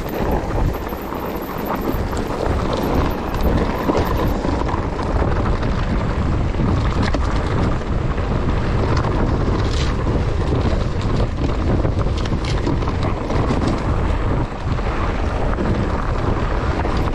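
Wind buffeting the microphone of a camera on a mountain bike riding down a rough trail, over a steady rumble of the tyres, with scattered knocks from the bike over bumps.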